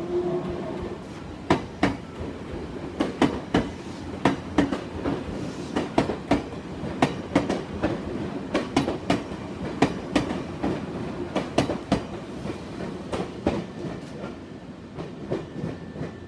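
Nankai 2000 series electric train pulling out and passing close by, its wheels clacking, mostly in pairs, over rail joints and points. Over a steady rumble, the clacks grow fainter and sparser near the end as the train moves away.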